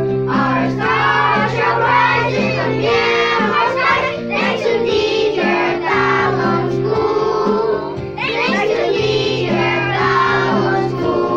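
A group of children singing a song together over instrumental accompaniment with steady held notes.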